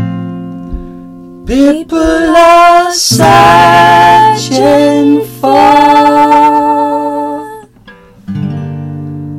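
Acoustic guitar strummed while a man and a girl sing together in long held notes. A chord rings and fades at the start, the voices come in about a second and a half in and hold until near the end, and a fresh chord is strummed near the end.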